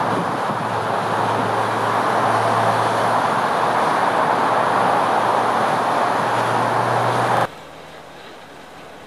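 Steady motor-vehicle noise with a constant low engine hum. It cuts off suddenly about seven and a half seconds in, leaving only a faint, much quieter background.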